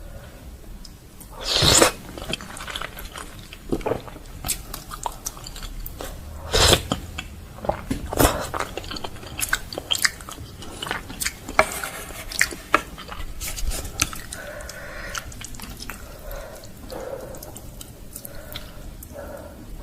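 Close-miked eating of Korean-style instant noodles: chewing and biting with many wet mouth clicks and several louder bursts, the loudest about two seconds in.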